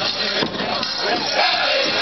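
Powwow drum song: a big drum struck in a steady beat, with the drum group singing over it.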